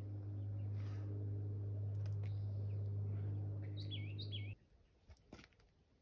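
Small birds chirping in short, wavering calls over a steady low hum; the hum cuts off suddenly about four and a half seconds in, leaving a quiet background with a few faint clicks.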